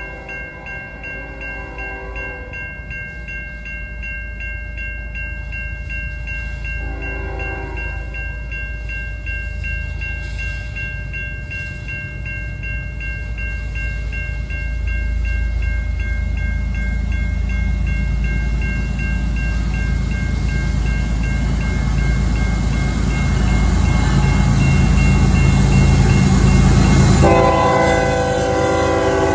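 Norfolk Southern freight train led by a GE ES44AC diesel locomotive, approaching with its engine rumble growing steadily louder. Its multi-note horn sounds briefly at the start and again about seven seconds in, then in a long, loud blast as the locomotive arrives near the end.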